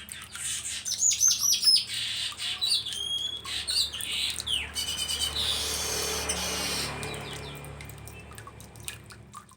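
Streaked weaver (manyar jambul) singing: a run of quick high chirps and short falling whistles, then a long wheezy, sizzling buzz about five to seven seconds in, fading away near the end. A faint steady low hum sits under it.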